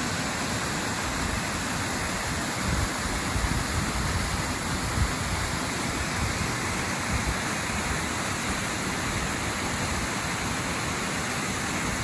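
Small mountain waterfall pouring steadily into its plunge pool: a dense, even rush of falling water.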